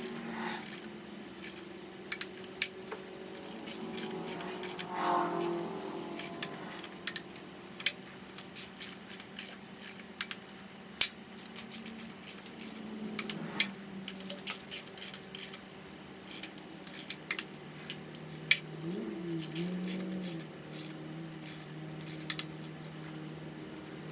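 Irregular sharp metal clicks and taps of a hand torque wrench being ratcheted around the LS1's intake manifold bolts, tightening them to 89 inch-pounds in sequence.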